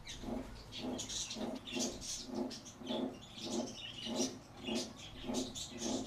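Budgerigars chirping and chattering in short, high, irregular bursts, over a low, regular pulsing sound about twice a second.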